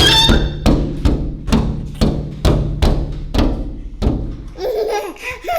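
Background music with a steady drum beat, about two beats a second. Near the end a baby vocalizes with rising and falling pitch.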